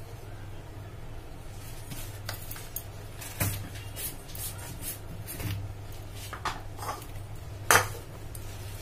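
Kitchen dishes and containers being handled on a counter: scattered light clinks and knocks, with one louder knock about a second before the end, over a low steady hum.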